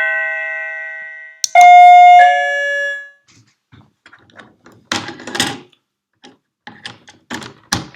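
Plug-in wireless doorbell receiver chiming: an earlier chime rings down, then a falling two-note ding-dong sounds about a second and a half in and fades. Light clicks and handling noises follow near the end.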